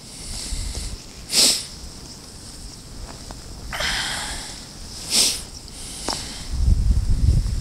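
A person sniffing sharply through the nose twice, about four seconds apart, with a softer breath between. Low wind rumble on the microphone near the end.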